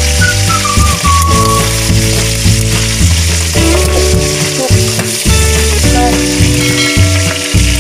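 Pork steak pieces deep-frying in hot oil in a wok, a steady sizzle, under background music with a steady bass line.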